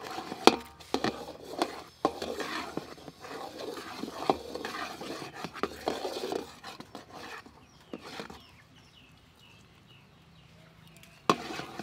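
Sticks of firewood knocked and scraped against each other as they are pushed into a wood-fired stove, with several sharp knocks in the first few seconds. After that it goes much quieter, leaving only the fire burning faintly.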